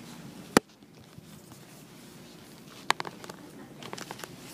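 Two sharp clicks about two and a half seconds apart, the first the louder, followed by a few fainter ticks over low room noise.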